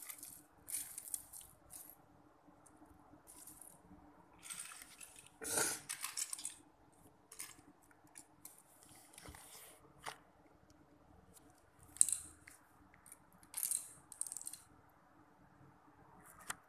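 Loose plastic Lego bricks clicking and clattering in short, irregular bursts as hands rummage through a pile of pieces on a hard tile floor, with sharper clatters about six and twelve seconds in.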